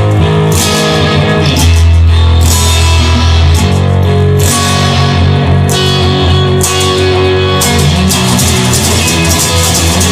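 Instrumental introduction of a rock song: electric guitar with bass and drums, no vocals yet.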